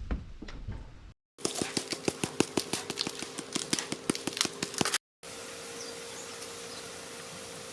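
Food being prepared in a kitchen, heard in short cut-together clips: a fast run of sharp scraping clicks, then a steady low hiss with a faint hum.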